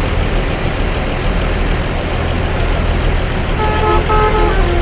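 A steady low vehicle rumble. About three and a half seconds in, a bus's telolet horn, a multi-tone musical air horn, starts playing a quick tune of short chords.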